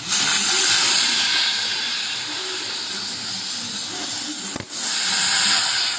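Gas cutting torch hissing steadily as it cuts through a steel barrel. The hiss drops out for a moment twice, right at the start and about four and a half seconds in.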